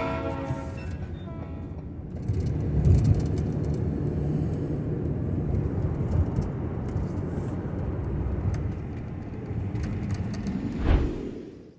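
Road and engine noise of a Ford Transit camper van driving, heard from inside the cabin: a steady low rumble that grows louder about two seconds in, swells briefly near the end, then cuts off.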